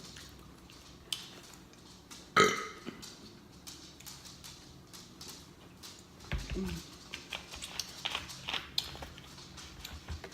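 A woman burps once loudly about two and a half seconds in, and gives a shorter, softer burp about six and a half seconds in. Faint clicks come between them.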